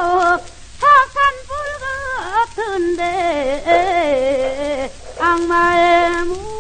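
A voice singing Korean Gyeonggi/Seodo folk song (gyeongseodo sori) with a wide, wavering vibrato, in phrases with short breaks. It plays from an early Victor gramophone disc, with steady record-surface crackle underneath and the top end cut off.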